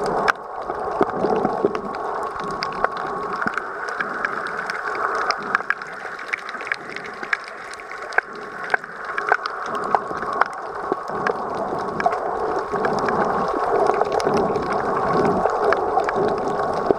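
Underwater sound picked up by a camera below the surface on a rocky reef: a steady, muffled rushing hiss with many scattered sharp clicks and crackles and a faint steady tone.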